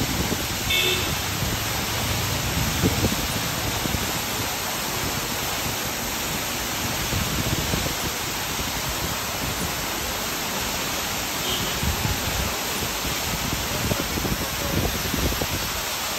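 Waterfall pouring down a rock face, a steady rushing hiss of falling water.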